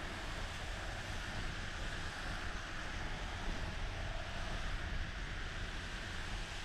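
Car driving on wet asphalt: a steady hiss of tyres on the wet road over a low rumble of road and engine noise.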